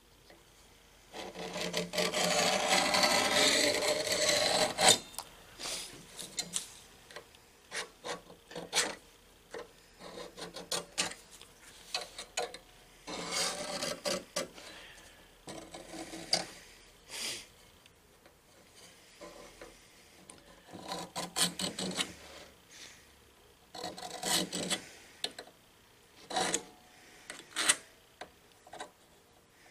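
Hand scribe scratching on tool steel as it traces around a knife pattern to mark out the blank. The first stroke, about a second in, is long and the loudest, lasting about four seconds. Many short scratches with pauses between them follow.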